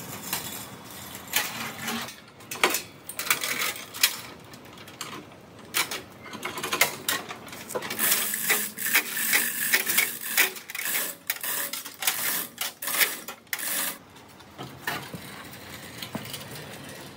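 Irregular clanking and rattling of hard objects, many sharp knocks at uneven intervals, busiest in the middle and thinning out near the end.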